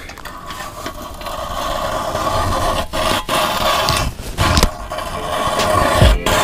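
Hand-cranked ice auger grinding its blades into lake ice as it is turned: a steady scraping that builds over the first couple of seconds, with a few brief breaks.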